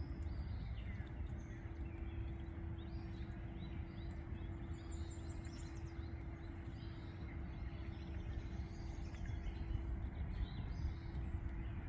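Outdoor riverside ambience: a steady low background rumble with a faint steady hum, and small songbirds singing short high phrases, a cluster around the middle and more near the end.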